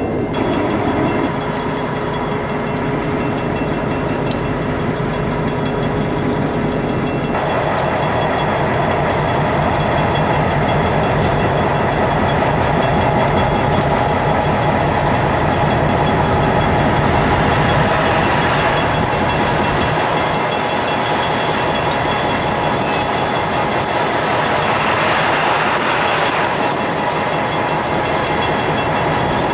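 Union Pacific diesel locomotives running, a steady engine sound with held tones that shifts in pitch and strength about seven seconds in.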